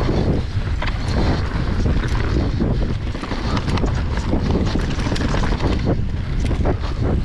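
Nukeproof Mega mountain bike descending a rocky trail: wind buffeting the microphone over a steady rumble of tyres on rock and dirt, with frequent short clicks and rattles of the bike over stones.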